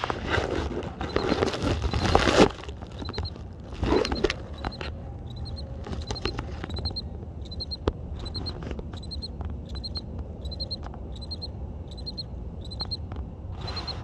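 Male field cricket chirping: short high chirps, about two a second, each a quick run of pulses. A loud rustling noise covers the first two and a half seconds and comes again briefly about four seconds in.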